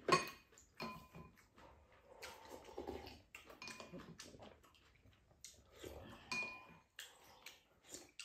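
Mealtime sounds: chopsticks and spoons clinking against ceramic bowls in scattered short clinks, some ringing briefly, with slurping as a bowl is drunk from.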